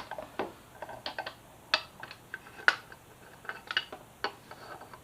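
Irregular light clicks and metallic clinks of motorcycle rear-set and chain-guard parts being handled and positioned against the bike, the sharpest knocks about two and three seconds in.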